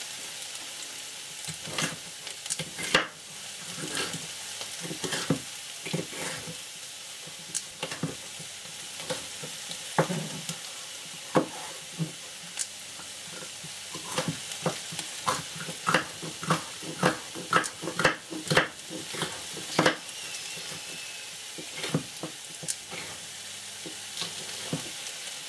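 Vegetables sizzling steadily in a frying pan, with frequent irregular sharp knocks and clicks of kitchen work over the sizzle.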